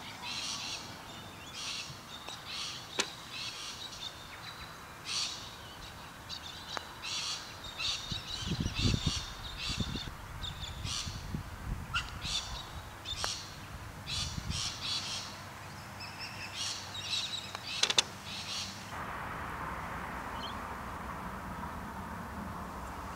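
Birds calling over and over, with a few sharp clicks among the calls and low rumbling around the middle. The birdsong stops about 19 s in, leaving a steady outdoor hiss.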